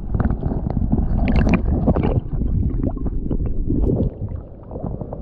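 Water sloshing and gurgling around a camera held under the river surface, with many small splashes and knocks. It gets quieter after about four seconds, as the camera comes up to the waterline.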